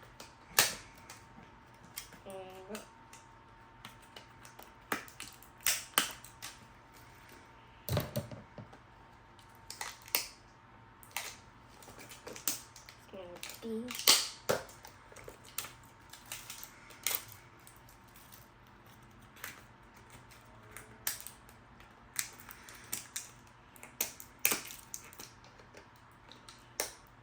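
Irregular sharp clicks and crackles from a plastic blind-box package being handled and worked open, one or two snaps a second.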